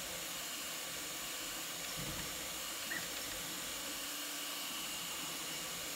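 AnkerMake M5C 3D printer running a fast print: a steady hiss of its fans with a faint hum underneath, quiet for a printer at that speed.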